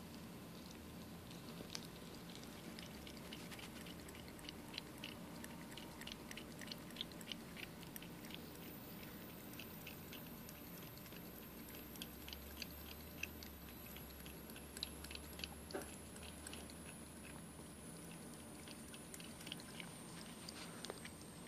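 Domestic cat lapping water from a shallow tub: runs of faint, quick wet tongue clicks, several a second, with short pauses between runs.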